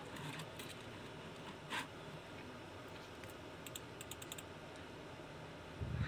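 Faint clicking at a computer while an on-screen document is scrolled: one slightly louder click a little under two seconds in and a quick run of small clicks around four seconds in, over faint hiss. A soft low thump comes right at the end.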